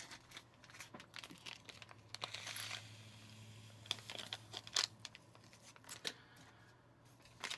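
Paper-and-plastic candy packet being handled and torn open: crinkling, with a longer rip a little over two seconds in and scattered light clicks and taps.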